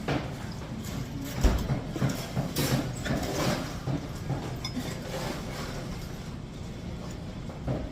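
Eating barbecue pork ribs close to the microphone: chewing, with irregular small clicks and rustles of the food being handled. A low thump comes about one and a half seconds in.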